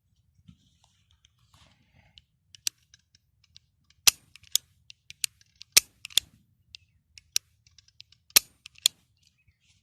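Beretta 92FS 9mm pistol being handled: irregular sharp metallic clicks and clacks of its mechanism. The clicks grow louder and more frequent after about four seconds, with a few louder snaps among them.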